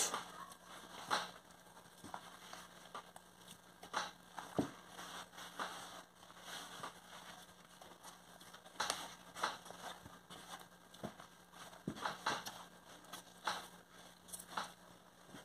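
Hands mixing and kneading soft, sticky bread dough in a bowl: irregular soft squishes and taps as the dough is pressed and folded.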